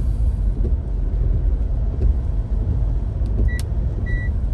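Steady low rumble of a car driving, heard from inside the cabin. About three and a half seconds in come a click and two short high beeps.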